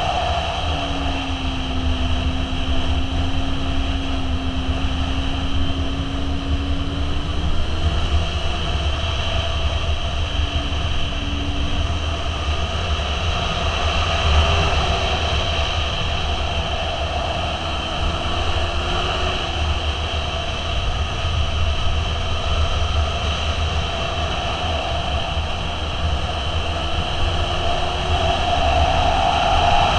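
Motorcycle riding at road speed: heavy wind rumble on the camera microphone, with the engine note running underneath, its pitch drifting up and down as the speed changes.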